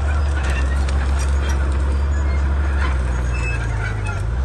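Komatsu D31P bulldozer's diesel engine running with a deep, steady drone, its note shifting slightly about three seconds in, with scattered clicks and cracks over it.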